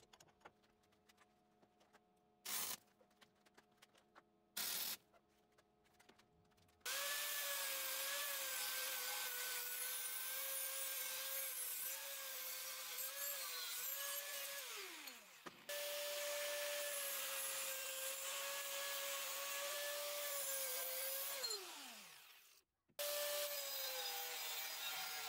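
Angle grinder with a cut-off disc cutting through steel flat bar held in a vise: a steady high whine over a harsh hiss. Twice it winds down in pitch and then starts up again. Before it starts, about seven seconds of light clicks and knocks with two short loud bursts.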